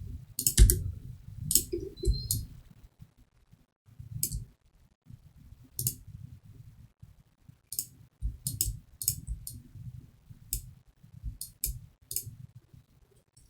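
Irregular clicking of a computer mouse and keyboard, about fifteen sharp clicks spread unevenly, each with a dull low knock on the desk.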